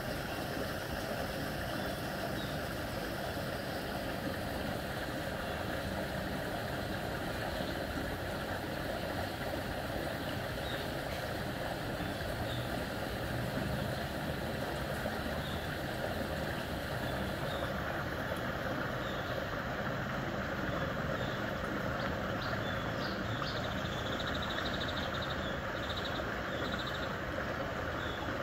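Floodwater draining into a street culvert pipe: a steady rush of water, with light rain dripping onto the flooded surface in small faint ticks.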